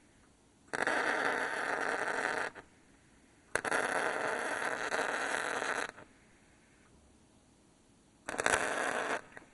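MIG welder laying three short weld beads, crackling and spattering, the first two about two seconds each and a shorter one near the end, with quiet pauses between. It is running stainless steel wire, which spatters more than mild steel wire.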